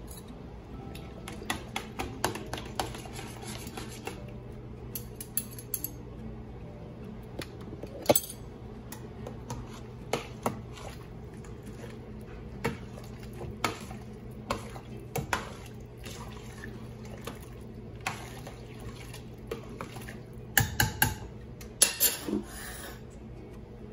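Metal spoon stirring vegetable broth in a stainless steel pot, clinking and scraping against the pot in irregular knocks, with a quick run of taps near the end. A low steady hum runs underneath.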